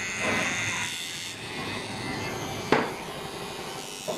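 Electric hair clippers buzzing steadily as they shave short hair off a scalp. A sharp click comes just under three seconds in, and a smaller one near the end.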